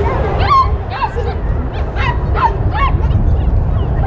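A small dog yipping and barking over and over, about two short calls a second, over a steady low rumble.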